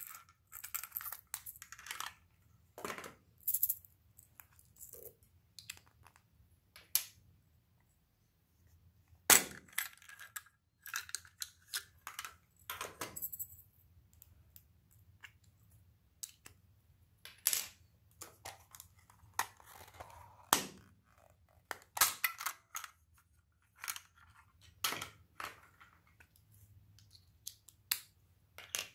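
Hard plastic toy egg capsule and small plastic packets being handled and opened: irregular sharp clicks, snaps and crinkles, with a few louder snaps scattered through.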